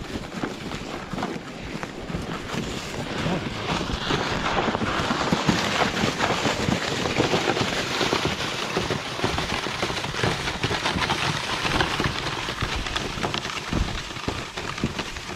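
Wind buffeting the microphone: a steady rushing noise with gusty buffeting that swells a few seconds in.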